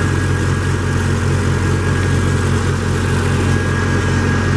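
1997 Chevrolet 3500 pickup engine idling steadily, a low rumble with an even pulse, with a faint steady high whine above it.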